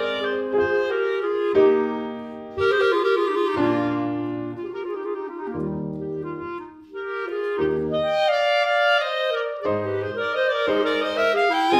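Two clarinets and piano playing a classical chamber piece: sustained, interweaving clarinet melody lines over piano chords and low bass notes.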